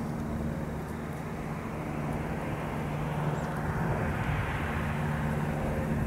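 A distant engine drone: a steady low hum under a rushing noise that slowly grows louder through the second half.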